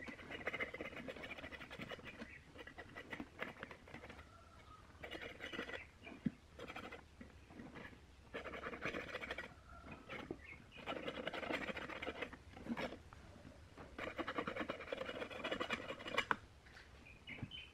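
Fingers rubbing and pressing along the edge of a woofer's surround as it is glued back onto the speaker's metal frame. It makes a dry scratching and rustling in repeated bursts of one to two seconds, with short pauses between.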